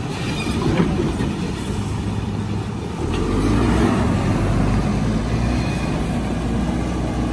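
Diesel engines of JCB backhoe loaders running at working revs, a steady low hum that gets louder about three seconds in.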